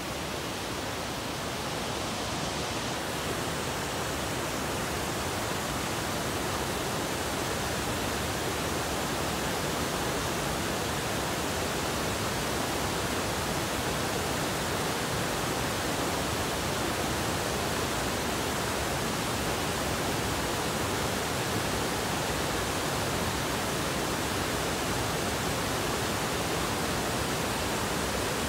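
Shallow mountain river rushing over low stone weirs: a steady, even rush of water.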